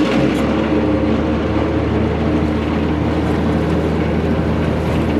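Narrowboat's diesel engine opened up hard, jumping in loudness at the start and then running steadily at high revs as the boat is driven against the strong river current.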